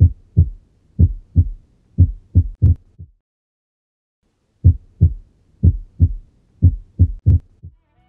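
Heart sounds from an auscultation recording: regular lub-dub beats about once a second, twice broken by an early beat with a faint second sound, each followed by a long silent pause. This is the compensatory pause of a ventricular extrasystole (premature ventricular contraction).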